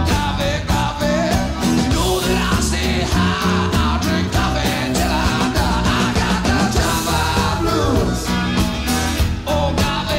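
Rock song with singing over a steady beat, played loud.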